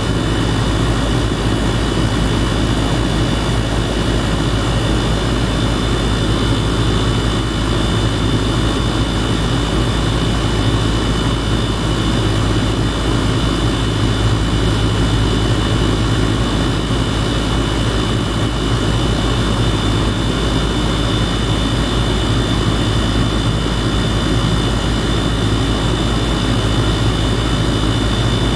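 2018 Goodman 2.5-ton gas pack running steadily in cooling mode, heard up close at the compressor: a constant low compressor hum under an even rush of air from the condenser fan, with a faint high whine.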